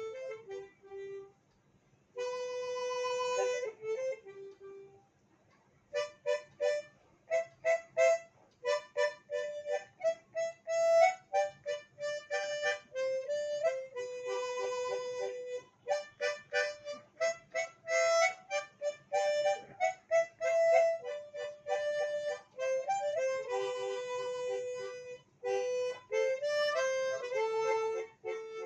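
Solo harmonica playing a melody: long held notes alternating with runs of short, quickly tongued notes, with a couple of brief pauses in the first few seconds.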